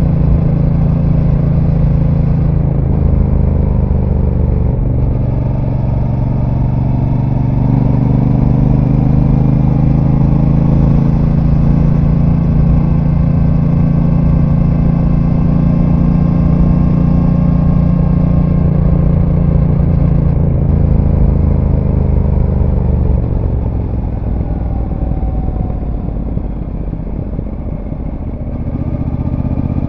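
A Brixton Cromwell 1200's parallel-twin engine through its stock exhaust, heard from on board while riding. The engine note changes pitch a few times early on, then holds steady under load. About 23 s in it eases off, dropping in loudness and pitch, and pulls again near the end.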